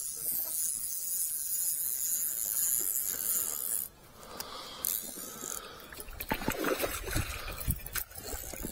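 A steady high hiss for about four seconds, then knocks from the rod being handled and a hooked carp splashing and thrashing at the surface near the end.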